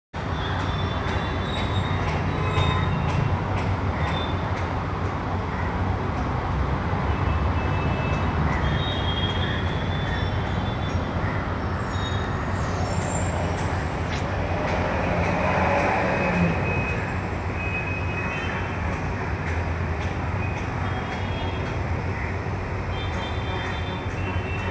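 Steady low rumble of urban machinery noise, with faint thin high squeals coming and going above it.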